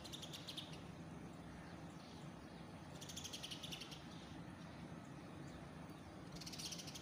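A bird calling in three short, rapid high-pitched chattering trills, one near the start, one about three seconds in and one near the end, over a faint steady low hum.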